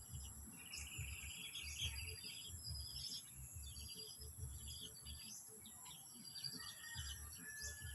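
Small parrot chirping and twittering in a run of short, high calls and trills, over a low intermittent rumble.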